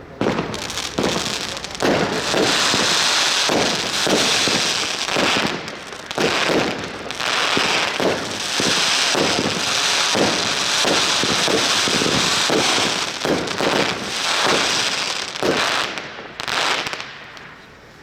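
Zena Donnerblitz consumer firework battery firing a rapid string of shots, several a second, over continuous dense crackling. The barrage dies away near the end.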